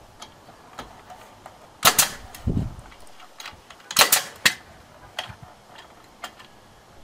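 Siding staple gun firing staples through a vinyl corner post into the shed wall: three sharp shots, about two seconds in and about four seconds in, the last half a second after the second, with a dull thud after the first.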